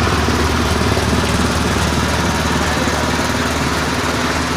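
Candlenut shelling machine running steadily; it is an impact-type sheller that flings the nuts to crack their shells.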